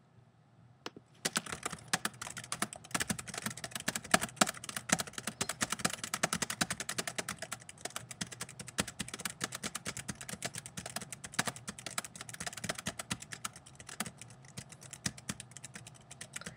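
Rapid typing on a computer keyboard: a fast, uneven run of key clicks that starts about a second in and thins out near the end.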